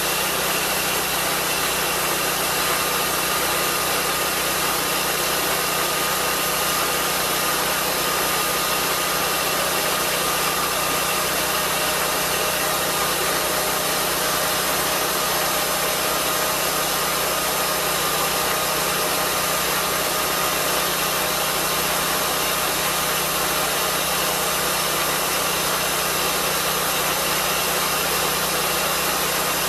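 Lucas swingblade sawmill's petrol engine running steadily while sawing, a loud constant drone that holds the same pitch throughout.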